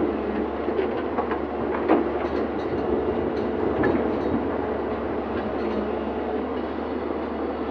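Excavator working, its engine running steadily under a clattering mechanical din, with a few sharp metallic clanks and knocks in the first half.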